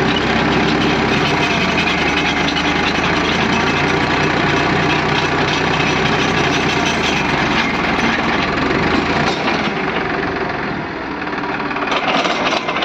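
Tractor engine running steadily under load, driving a PTO-powered post hole digger's auger as it bores into dry, stony soil. The deep engine note falls away about nine seconds in.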